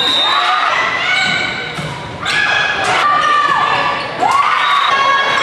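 Volleyball struck sharply about three times during a rally, roughly two, three and four seconds in, amid high shouting voices of players and spectators in a gym.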